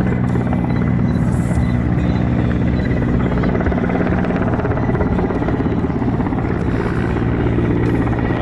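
Mil Mi-8MTKO helicopter flying overhead: a steady, loud rotor beat from its five-blade main rotor, with a thin high whine from its twin turboshaft engines alongside.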